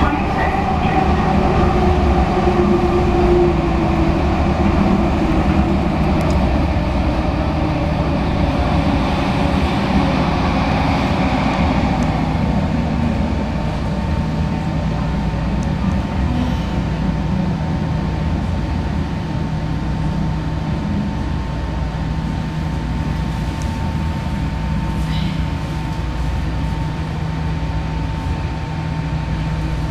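SkyTrain Expo Line car, heard from inside, running along the elevated guideway with a steady rumble of wheels on rail. A steady high whine joins about halfway through, and the sound eases off gradually as the train slows into a station.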